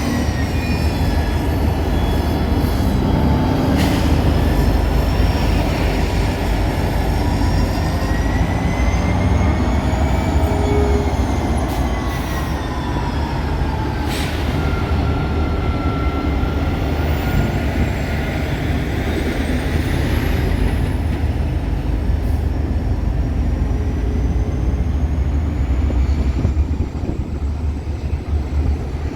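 Freight train rolling past: a heavy, steady rumble of wheels on rail, with high thin squealing tones slowly wavering up and down and a few sharp clanks.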